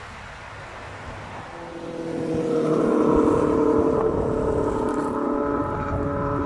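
A motor's steady hum swells in about two seconds in and stays loud, over a light background hiss.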